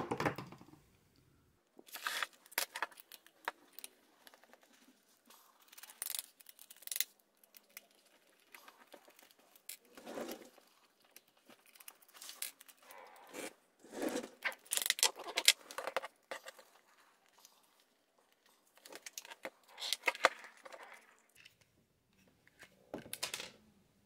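A small screwdriver working screws out of a plastic Turbo Power Twin Turbo 3200 hair dryer housing, with scattered clicks, scrapes and rattles as the casing is handled. The noises come in separate clusters with quiet gaps between them, the loudest about halfway through.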